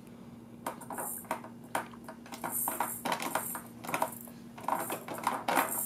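Irregular plastic clicks and rattles from a baby's hand working the spinner-ball and keys of a Little Tikes 3-in-1 activity walker.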